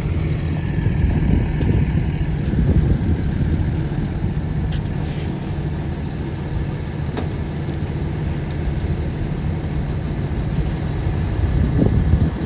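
Fire engine's diesel engine idling steadily, with a faint falling whine in the first couple of seconds.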